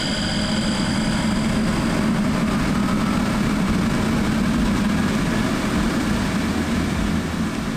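Inverter-driven sirocco (centrifugal) blower running steadily, a continuous rush of air with a low hum. A faint whine rises slowly in pitch in the middle.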